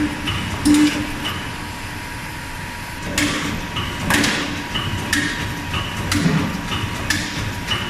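Automatic CNC hydraulic hole punching machine working angle iron: a run of sharp metal clanks from the punch and feeder, roughly one a second, over a steady machine hum, with a short lull about two seconds in.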